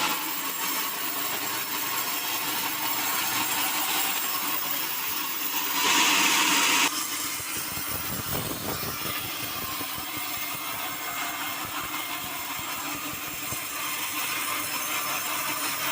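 Sawmill saw cutting through timber: a steady, hissing cutting noise, louder for about a second near the middle.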